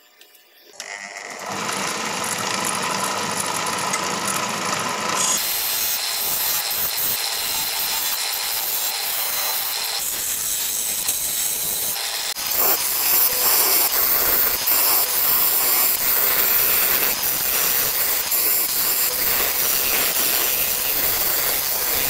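An improvised wood lathe's motor starts up and spins a teak cylinder. From about five seconds in, a steady scraping noise comes from a tool working the spinning wood, getting louder around twelve seconds in.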